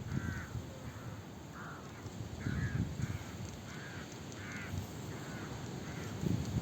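Birds giving a run of short, harsh calls, one roughly every half second, over intermittent low rumbling.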